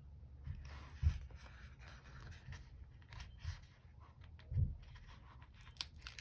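Sticker sheets and paper being handled and rustled at a desk, with a couple of soft thumps about a second in and again past the middle, and a few light ticks near the end.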